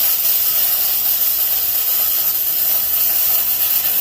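Electric welding arc on thin stainless steel sheet, crackling and hissing steadily through one continuous bead of about four seconds, stopping near the end, with the welder turned down for the thin stock.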